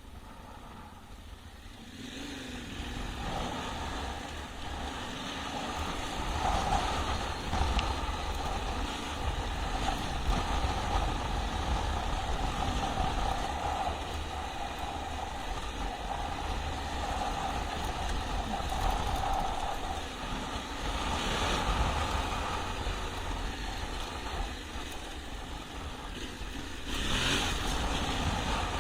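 Yamaha Ténéré 700's 689 cc parallel-twin engine running as the motorcycle is ridden off-road, its sound rising and falling with the throttle. It starts quieter and grows louder about two seconds in.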